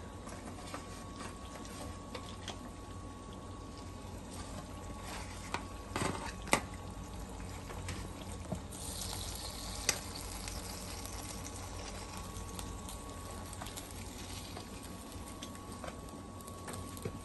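Hot meat juices sizzling faintly in an aluminium foil baking tray fresh from a very hot oven, with a brighter burst of sizzle about nine seconds in. Metal tongs click against the tray a few times, about six and ten seconds in, over a steady low hum.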